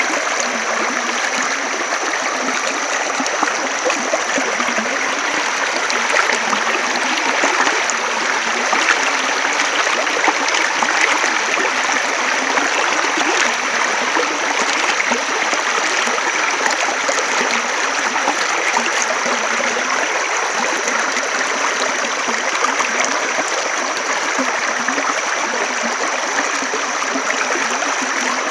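Stream water flowing and trickling steadily, an unbroken wash of water noise.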